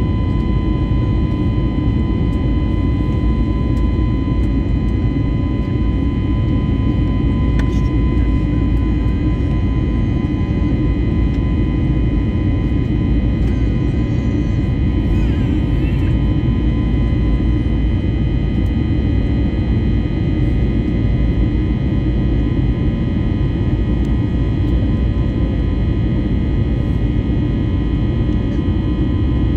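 Airbus A320 jet engines heard inside the cabin from a seat beside the engine during the climb after takeoff: a loud, steady low roar with a steady high whine on top.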